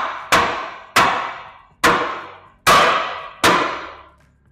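A mallet striking a metal swing-away tire carrier bracket five times, about once a second, each blow ringing briefly, as the bracket is tapped into place on the bumper.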